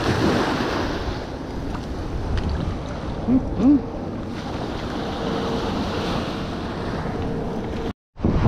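Small surf waves washing onto a sandy beach, with wind buffeting the microphone. About three and a half seconds in come two short, low rising-and-falling sounds.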